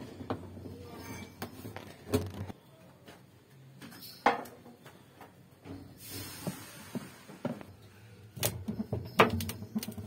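Scattered clicks and knocks of a hand tool and hands working in the plastic tub of a Haceb top-load washing machine, with a sharp click about four seconds in and a cluster of knocks near the end.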